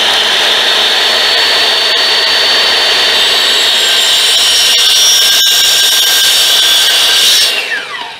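Electric miter saw running at full speed while its blade cuts into a thick bamboo pole, too big for the blade to cut through in one pass, so only a partial cut is made. Near the end the trigger is released and the motor winds down with a falling whine.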